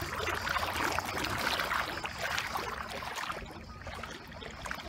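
Shallow seawater splashing and sloshing around a foot kicking through it, easing off near the end into gentler lapping.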